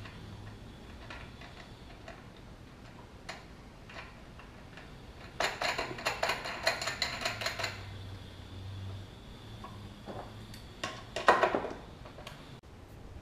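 Scattered metal clicks as nuts and washers are worked onto the table's leg bolts with a wrench, with a run of quick clicks lasting about two seconds near the middle and a louder clatter near the end.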